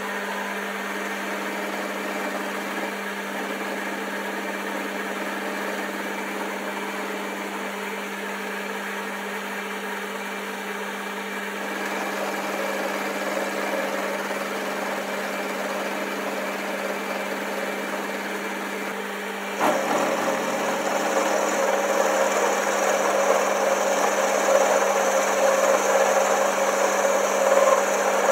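Boxford lathe running with a 12 mm end mill held in its chuck, milling a V groove into a square steel bar: a steady machine hum with the cutter's grinding chatter over it. About two-thirds of the way through, the cutting noise suddenly gets louder and harsher.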